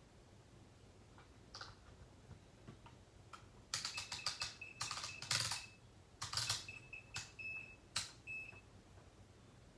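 Clicks and rattles of a test meter and its leads being handled, with several short high-pitched electronic beeps from the meter, starting about four seconds in.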